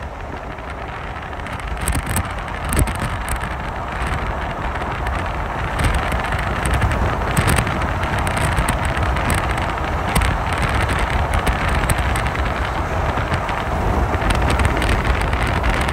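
Steady rushing noise with wind buffeting the microphone over a low rumble, growing louder over the first few seconds and then holding.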